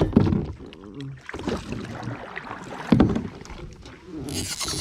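Knocks and bumps against a kayak, the loudest about three seconds in, with a short hiss near the end.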